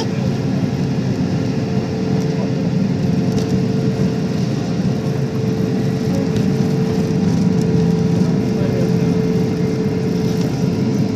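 Jet airliner cabin noise during the takeoff roll: the engines at takeoff power make a loud, steady drone with a held mid-pitched tone.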